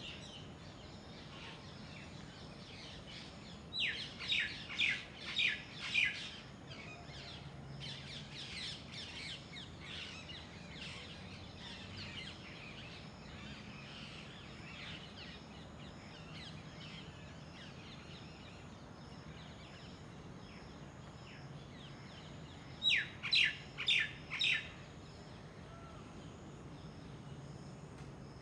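Small birds chirping: a run of five or six sharp, high, falling chirps about four seconds in, fainter chirping for several seconds after, and another run of four loud chirps near the end.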